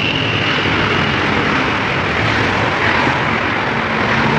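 Steady, loud rushing noise with a faint low hum underneath.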